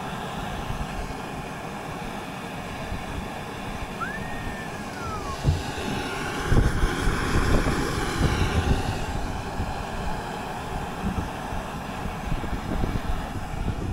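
Steady roar of a portable gas canister stove's burner under a pot of crabs cooking, with wind buffeting the microphone. A brief falling whistle sounds about four seconds in.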